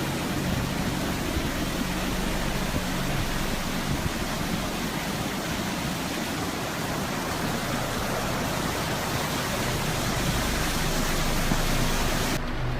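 A steady, even rushing noise that cuts in suddenly and cuts off suddenly near the end.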